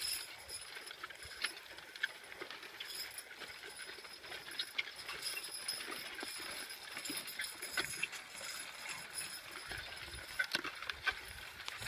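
Team of draft horses (two Belgians and a Suffolk) walking abreast over tilled soil pulling a disk harrow: irregular hoof falls on loose earth, with the trace chains and harness hardware clinking and rattling.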